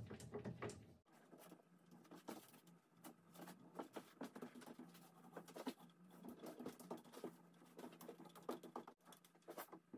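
Small foam roller spreading glue along the wooden lattice bars of an old window: a faint, irregular patter of small sticky ticks and taps. A low steady hum sits under it from about a second in.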